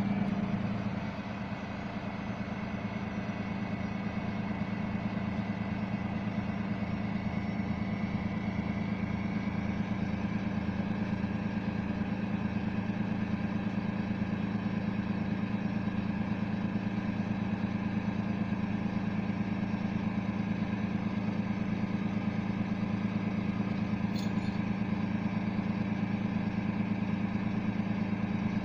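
A vehicle engine idling steadily, a low, even hum.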